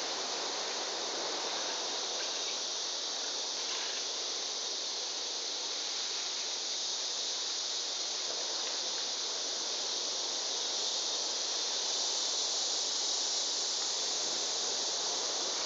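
Steady high-pitched drone of a tropical insect chorus, unbroken and growing slightly louder in the second half.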